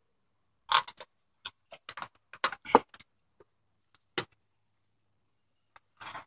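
Irregular sharp clicks and taps of a metal roof panel being worked by hand at its raised side-lock seam, bunched together in the first three seconds, with a single tick past the middle and a few more near the end.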